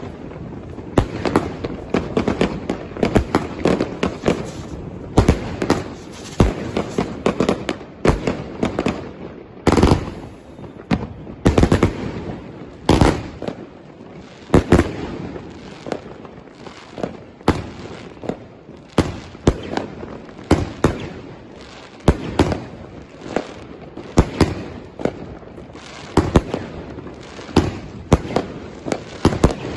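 Alpha Fireworks Venom firework going off: sharp bangs and pops in quick, uneven succession, several a second at times, as its shots burst overhead.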